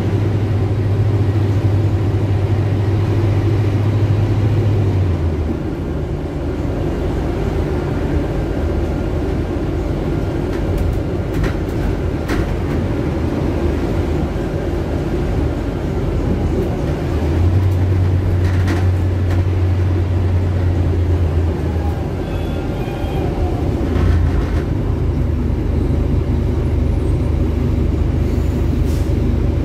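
Rear-mounted Scania OC09 five-cylinder inline engine of a city bus heard from inside the cabin while the bus drives. It runs with a steady low drone for the first five seconds, eases off, then drones strongly again from about seventeen to twenty-one seconds and at a lower pitch near the end, with a few short rattles and clicks from the cabin.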